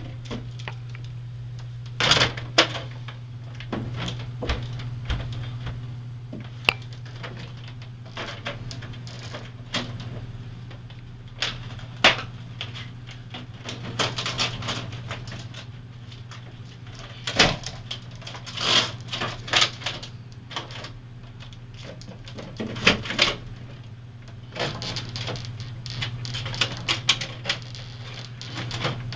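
Plastic drink bottles and a take-out food box knocking and rattling against the shelves and door of a hotel mini fridge as they are shoved in and rearranged: irregular clusters of clunks and clatters over a steady low hum.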